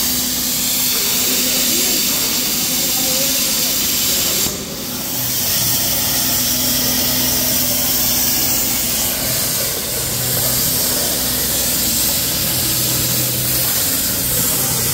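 Hardcut 82 CNC plasma cutter cutting metal sheet: a loud, steady hiss of the plasma arc and its air jet over a low steady hum. The hiss dips briefly about four and a half seconds in, then carries on.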